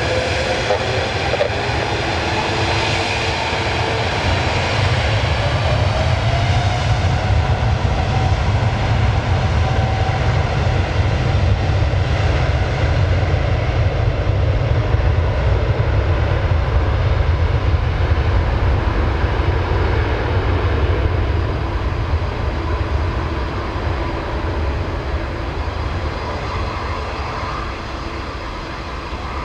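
Airbus A330neo's Rolls-Royce Trent 7000 turbofans at takeoff power during the takeoff roll: a deep, steady rumble with a jet whine that rises in pitch over the first several seconds, fading a little near the end as the airliner accelerates away.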